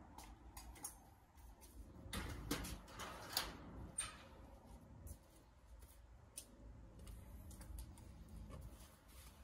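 Faint, scattered clicks and knocks of things being handled and shifted about, with a few sharper clicks about two to four seconds in.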